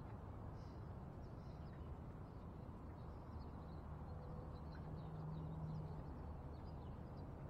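Faint low rumble of background noise with scattered, faint, high bird chirps; a low steady hum comes in for about two seconds around the middle.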